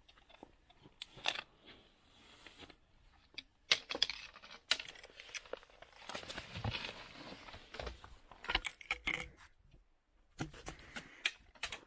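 Trekking-pole tips clicking and knocking irregularly on rock, with boots scuffing and gear rustling during a scramble down a rocky trail.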